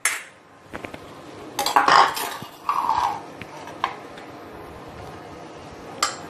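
Utensils knocking and scraping against a stone mortar and pestle as pounded ingredients are worked and scooped out: a few sharp clinks, a cluster about two seconds in, a short scrape soon after, and another clink near the end.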